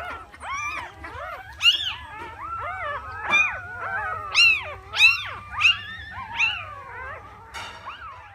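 A litter of three-day-old puppies yelping and whining, many short rising-and-falling high cries overlapping, with several loud yelps in the middle.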